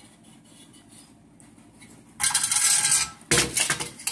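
A heavy metal clutch pressure plate is dragged across a concrete floor. A rough scrape starts about two seconds in, then there is a clank, then more scraping of metal on concrete.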